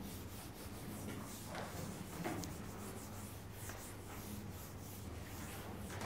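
Felt whiteboard eraser rubbing across a whiteboard in a run of repeated wiping strokes, over a steady low hum.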